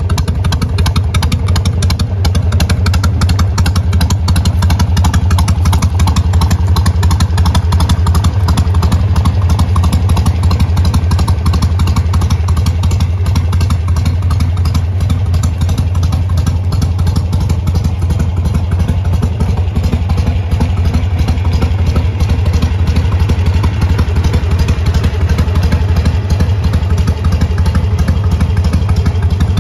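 2004 Harley-Davidson Sportster 883 Custom's air-cooled 45-degree V-twin, with a Stage 1 tune and S&S aftermarket exhausts, idling steadily and loudly with an even, low exhaust pulse.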